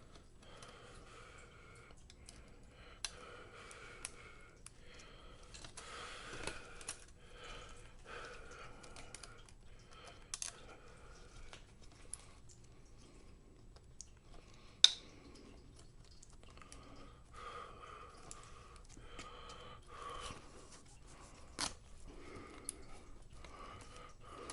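Quiet handling of laptop parts: faint rustling and scraping with scattered small clicks and taps, one sharp click about 15 seconds in and another near 22 seconds.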